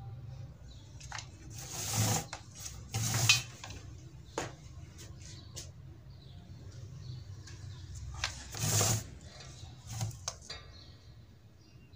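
Handling sounds from hot-gluing an LED bulb onto the metal back of an LCD panel: the glue gun's nozzle scraping the metal and the panel shifting on the bench. Three short scrapes and a few sharp clicks over a low steady hum.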